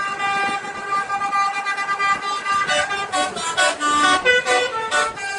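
Indonesian bus 'telolet' horn, a multi-tone musical air horn, sounding its tune: a held chord of several notes, then short notes changing pitch from about three seconds in.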